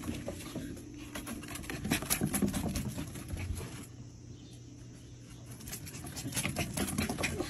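Irregular light clicks and patter of small paws on a wooden deck, sparse in the middle and busier again near the end as a Bichon Frise puppy runs across the boards.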